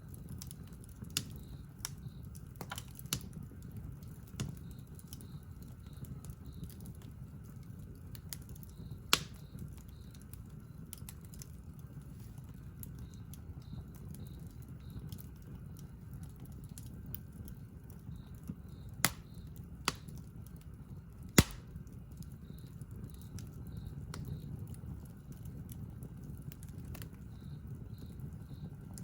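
Wood campfire crackling: a low steady rumble of burning with scattered sharp pops and snaps, a few much louder, about a third of the way in and twice more in the last third.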